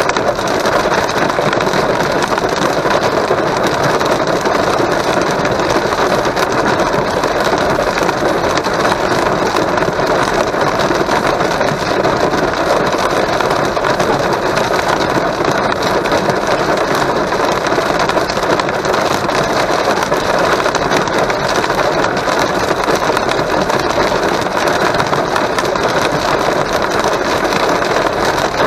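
Heavy rain and hail drumming on a car's roof and windscreen, heard from inside the car: a loud, dense, steady patter of many small hits.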